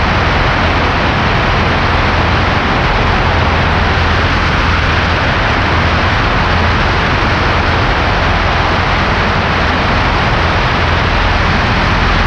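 Cessna 140A's four-cylinder Continental engine and propeller droning steadily, heard from inside the cabin in flight, with a low hum under a loud even rush. The engine is running in a newly installed cylinder.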